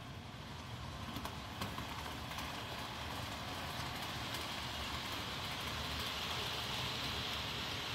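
HO scale model freight train running along the track, a steady rolling hiss and rumble of wheels on rails that grows slowly louder toward the end.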